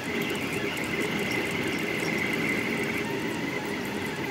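Delta Rostock 3D printer printing at high speed: its stepper motors whine steadily, a high tone over lower ones, as the effector darts around the print.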